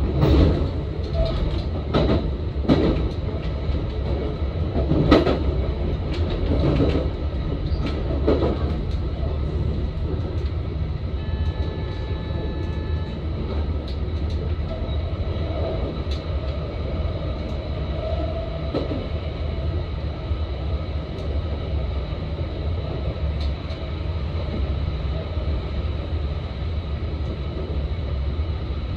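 Electric passenger train running along the line, heard from inside the train: a steady rumble, with a run of sharp clacks from the wheels over rail joints in the first eight seconds or so, then a smoother, even run.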